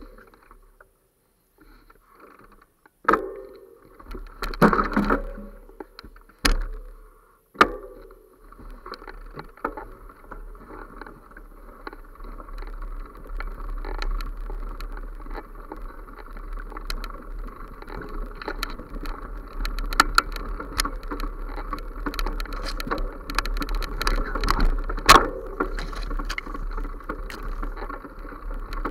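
Bicycle ridden along a bumpy forest dirt trail. A few separate loud knocks come in the first eight seconds, then a continuous rattling rumble with many irregular clicks as the bike runs over the uneven ground.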